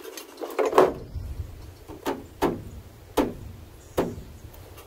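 About six sharp knocks and clacks from aluminum framing pieces being handled and set in place, the loudest about a second in, then roughly one a second, over a low rumble.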